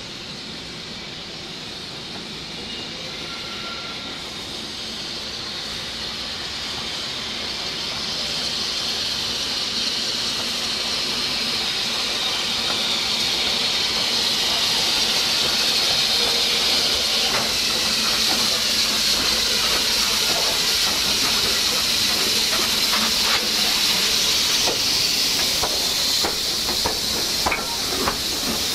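Steam locomotive hissing escaping steam, growing steadily louder over about fifteen seconds and then holding steady. Light clicks and knocks come in over the last ten seconds or so.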